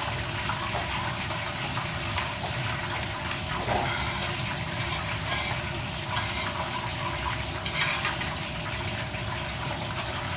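A knife slicing the crisp skin off a roast duck on an aluminium tray gives a few faint clicks and scrapes, over a steady rushing noise that is the loudest thing throughout.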